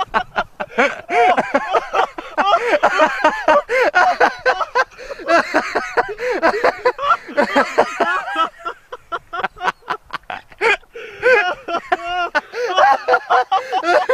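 Loud human laughter in long runs of short, rapid bursts.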